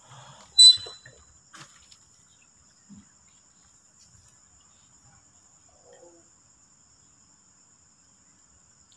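Crickets trilling faintly and steadily in a high, even tone. About a second in there is one brief, loud, sharp sound with a short high ring.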